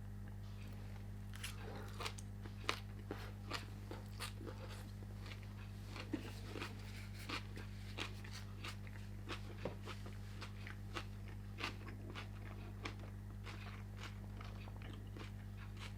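A person chewing a mouthful of Korean pork belly meal, with irregular wet crunches and crackles every fraction of a second, over a steady low electrical hum.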